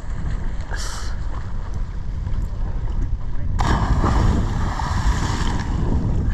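Wind buffeting the microphone over the rush of water along a boat's hull; about three and a half seconds in, a louder rushing hiss swells up and holds for a couple of seconds.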